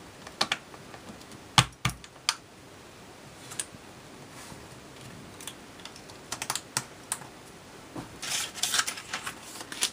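Hard plastic clicking and tapping as hands press on and handle Cuttlebug embossing plates: a green plate and a clear acrylic plate. There is a single loud knock about a second and a half in, and a quick flurry of small clicks near the end.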